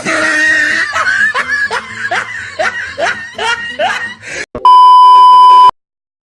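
A person laughing in a run of short, rising squeals, about two or three a second, followed by a loud, steady bleep tone lasting about a second that cuts off suddenly.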